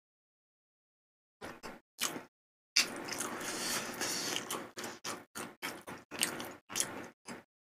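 Close-miked eating sounds from a bowl of malatang: a few short chewing sounds, then nearly two seconds of wet noise as wide glass noodles are lifted dripping from the broth with chopsticks, then a quick run of short chewing and mouth sounds.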